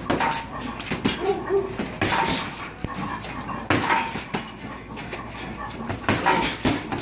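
Boxing gloves punching a hanging heavy bag: a string of smacks at irregular intervals, some in quick pairs.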